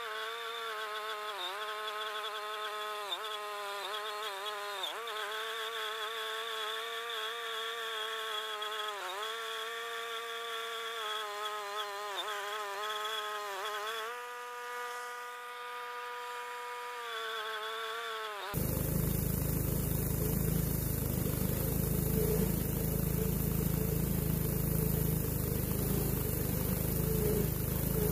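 Wood-Mizer LT10 bandsaw mill running through a maple log: a steady, high buzzing drone whose pitch sags briefly every second or two as the cut loads it. About two-thirds of the way through, the sound turns suddenly fuller and noisier.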